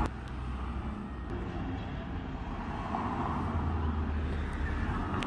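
Wind rumbling on a phone's microphone while walking: a steady low rumble with a hiss above it.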